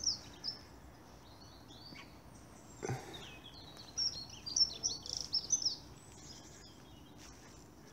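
Small songbird singing: scattered short, high chirps and gliding notes, coming thickest about four to six seconds in, over a faint steady outdoor hiss. A single soft thump about three seconds in.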